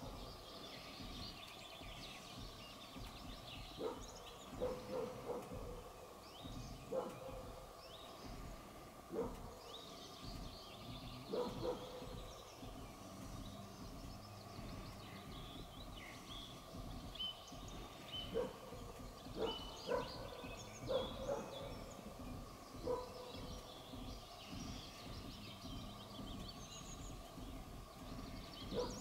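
Short, sharp animal calls repeating irregularly every second or two, with small birds chirping in the background.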